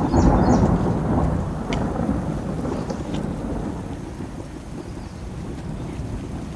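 A long roll of thunder, loudest in the first second and slowly fading away over the following seconds.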